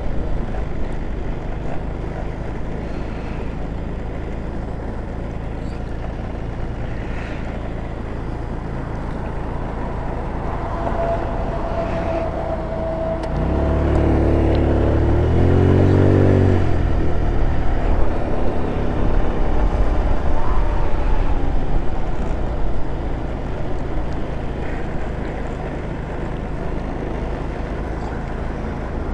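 GY6 scooter's four-stroke single-cylinder engine running under way, with a steady rumble and road noise. About halfway through, a louder engine note swells for a few seconds, its pitch climbing and then falling back.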